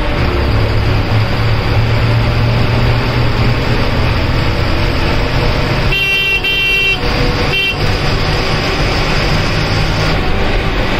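A bus engine running steadily with a low drone, heard from inside the driver's cab as the bus drives along the road. About six seconds in a vehicle horn sounds for about a second, followed shortly by a second, shorter toot.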